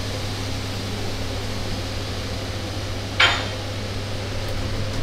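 One sharp metallic clink about three seconds in, a hand tool striking the sheet-metal grille panel being fitted, over a steady low workshop hum.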